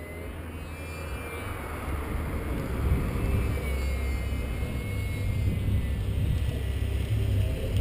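Small electric RC plane's 3000 Kv brushless motor and propeller whining high overhead, its pitch wavering up and down and fading after a few seconds. Underneath, a low wind rumble on the microphone grows louder.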